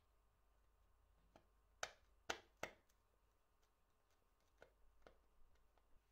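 Faint clicks and taps of small tools and parts as an old Solingen pocket knife is disassembled: three sharper clicks close together about two seconds in, then a few softer ones near the end.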